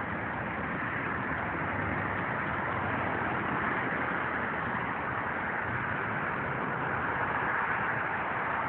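Steady road-traffic noise from the highway below, an even rushing hiss with no single vehicle standing out.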